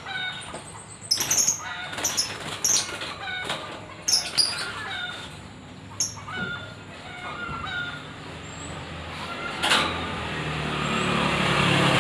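Small cage birds chirping in short calls, with wing flutters and clicks in the cage. About ten seconds in, a steady rumble like passing vehicle noise builds and drowns them.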